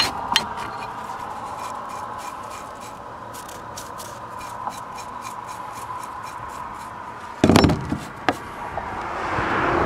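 Metal hand tools being picked up and set down on a wooden board: a sharp clink at the start, light ticks and rubbing, then a cluster of heavier knocks about seven and a half seconds in, over a faint steady hum.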